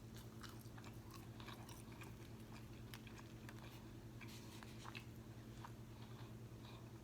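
Faint close-miked chewing of crispy fried food, with scattered small crunches and mouth clicks over a steady low hum.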